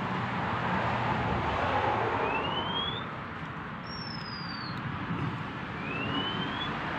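A bird calling in four thin whistled notes, each under a second long: three sliding upward and one sliding downward at a slightly higher pitch, spaced about two seconds apart. Underneath is a steady rushing background noise.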